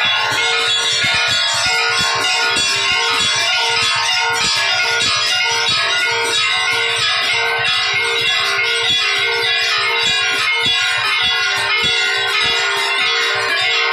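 Temple bells ringing rapidly and without pause during aarti: a dense clanging of many overlapping strikes over a steady, pulsing tone.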